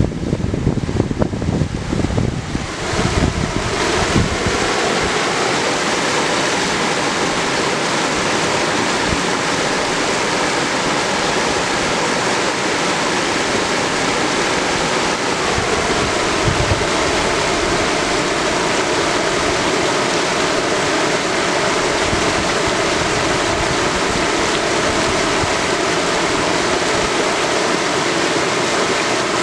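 Mountain river rushing steadily over granite slabs and through a small white-water chute. Wind buffets the microphone for the first few seconds, then dies away.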